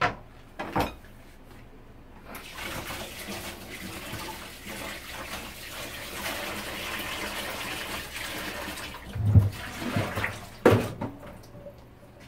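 Kitchen tap running into a stainless-steel sink as hands are washed under it, a steady rush lasting about seven seconds. Two knocks come just before the water starts, and a few thumps near the end.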